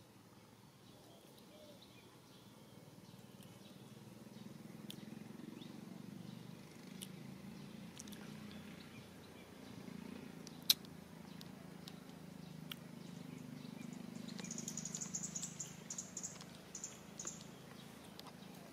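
Faint outdoor ambience: a low steady hum with a few scattered clicks, one of them sharp a little past halfway, and a quick run of high repeated chirps in the last few seconds.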